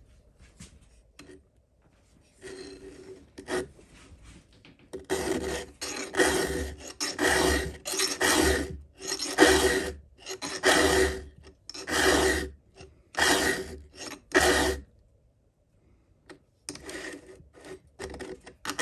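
Round chainsaw file being pushed by hand through a chain's cutter tooth, a rhythm of rasping strokes. They start light, run louder and steady at roughly one stroke every half to three-quarters of a second, stop for about a second and a half, then resume more lightly near the end.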